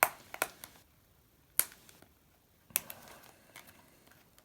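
Small cardboard trading-card box being handled and opened: a series of sharp, separate clicks and snaps of card and packaging, the loudest at the start, about one and a half seconds in, and near the three-second mark.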